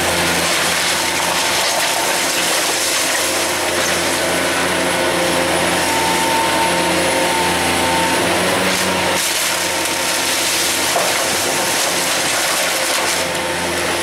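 John Deere 470G excavator's diesel engine running steadily while its arm works, with a thin higher whine coming and going over the engine hum.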